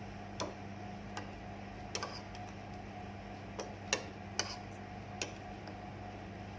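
Eating sounds: about eight short, sharp clicks and taps at uneven intervals, the loudest about four seconds in, over a steady low electrical hum.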